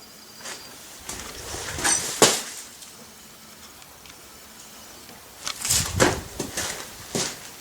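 Scattered knocks, clunks and scuffs of handling and movement: a sharp knock a little after two seconds and a cluster of clunks around six seconds.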